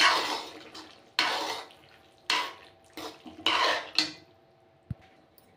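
Steel spoon stirring and scraping cooked macaroni around a metal kadhai: about five quick scraping strokes in the first four seconds, then quieter.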